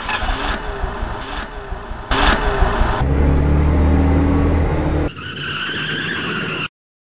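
Vehicle engine and road noise sound effects, in several edited segments that change abruptly, with a steady low engine hum through the middle; the sound cuts off suddenly near the end.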